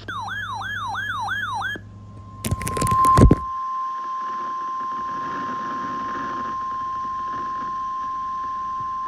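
A warbling electronic tone sweeping up and down about three times a second, which stops a little under two seconds in. It is followed by a loud crackling burst, then the steady single-pitch 1050 Hz warning alarm tone of NOAA Weather Radio, the attention signal that comes before a broadcast weather warning.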